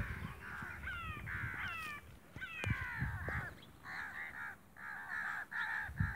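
Birds calling: quick falling whistled notes in the first half, then a run of short harsh calls, several a second, in the second half. A couple of dull knocks come in between.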